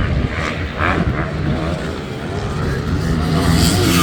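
Motocross race bikes' engines running and revving on the track, getting louder near the end as bikes come closer.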